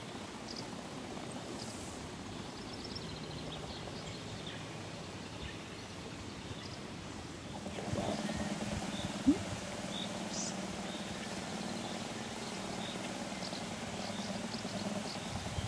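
Outdoor ambience with birds chirping now and then; from about 8 s in, a louder steady low buzz from the vibration motor of a small solar-powered drawing robot as it scribbles with its pen legs, with one sharp click a second later.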